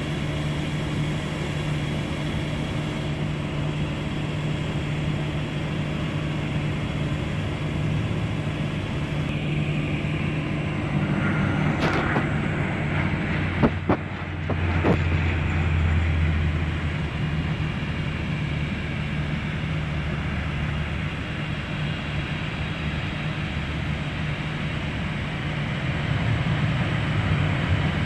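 Aircraft engines running steadily at an airport. About halfway through, a De Havilland Canada Dash 8-400 turboprop passes close on landing, with a swelling low propeller drone. A few sharp clicks come just before it peaks.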